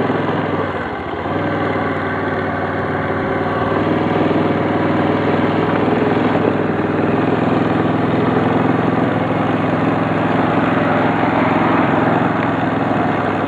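Kazuma ATV's engine putting along at low speed across a lawn, a steady even drone that picks up slightly about a second and a half in.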